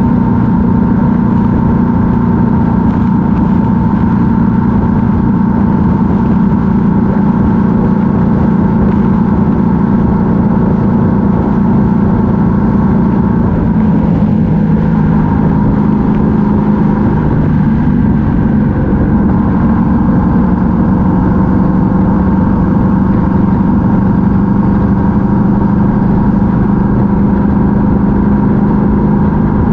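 Yamaha MT-07's 689 cc parallel-twin engine running steadily at cruising speed, heard from on board the motorcycle. The engine note drops slightly about halfway through, then comes back up.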